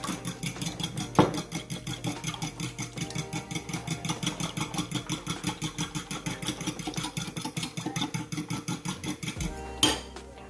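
Eggs being beaten by hand in a bowl: fast, even clinking strokes, about seven a second, ending with a louder knock near the end.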